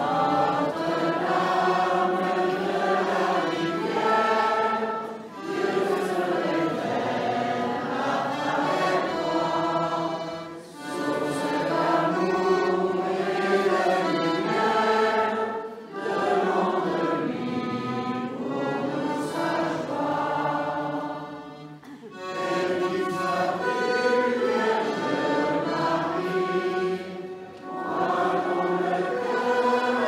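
Congregation singing a French hymn to Our Lady, line by line with short breaks between phrases about every five or six seconds.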